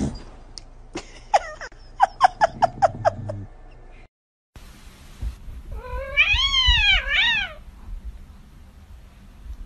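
Domestic cat calling: a short falling meow, then a quick run of short chirping calls, about four a second. After a brief cut to silence, a cat gives one long meow that rises and falls, followed by a shorter one.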